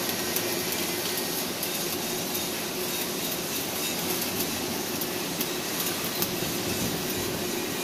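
Electric arc welding on steel plate: a steady crackling sizzle from the arc, with small sharper pops scattered through it.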